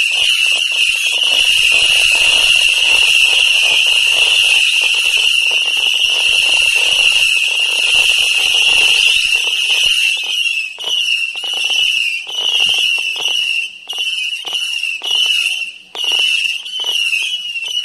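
Omega multi-shot fireworks battery firing whistling shots: a dense, continuous shrill whistle that, about ten seconds in, breaks up into separate whistles, about two a second, each dipping slightly in pitch.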